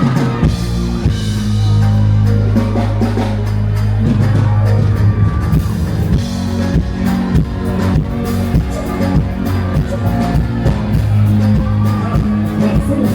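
Loud live band music: a drum kit keeping a steady beat under a heavy, sustained bass line, with no clear singing.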